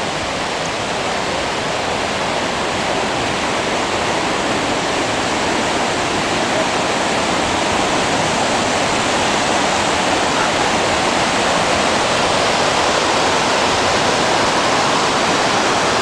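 Waterfall and its rocky stream rushing steadily, a dense, even noise of falling and running water that grows gradually louder as the falls draw nearer.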